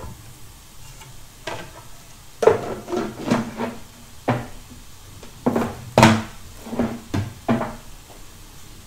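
Cookware and utensils knocking and clattering: a spatula, plastic tub and frying pans on the stovetop give a string of about a dozen sharp taps and knocks, the loudest about six seconds in. A faint frying sizzle runs underneath.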